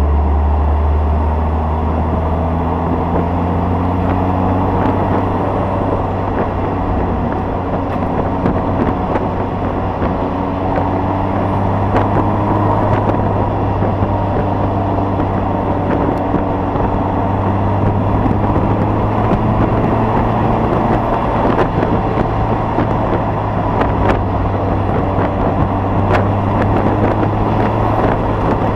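Car engine and tyre noise heard inside the cabin while driving, a steady low drone whose engine pitch slowly rises and falls.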